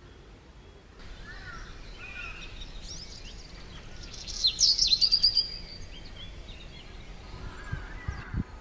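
Small birds chirping and calling over a steady background hiss, with a loud burst of rapid high chirps and trills from about four to five and a half seconds in.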